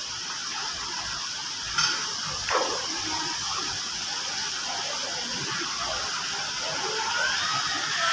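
Artificial-rock water feature's fountain jets and small waterfall splashing into the pool, a steady rushing hiss. A short sharp click comes about two seconds in, followed by a quick falling tone.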